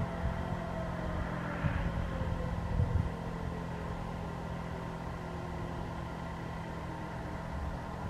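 Federal Signal Model 2 and Sterling 5VX outdoor warning sirens winding down, their pitch slowly falling, as the ending ambience of a siren test. Wind rumbles on the microphone, in a couple of gusts.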